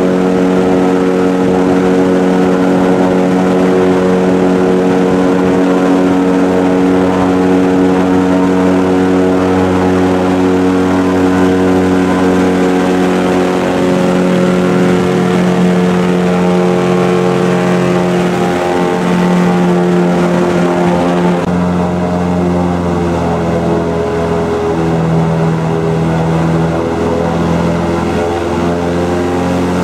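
Airboat's engine and large air propeller running at speed, a loud steady drone with its pitch shifting a little about two-thirds of the way through.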